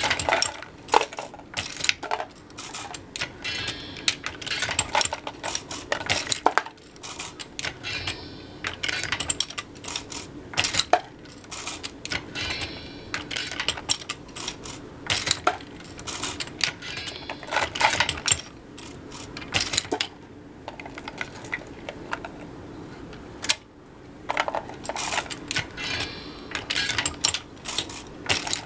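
Lee Loadmaster progressive reloading press being cycled: clusters of sharp metallic clicks and clinks every two to three seconds as the ram strokes and the shell plate indexes, with brass cases clinking. The clicking pauses briefly about two-thirds of the way through.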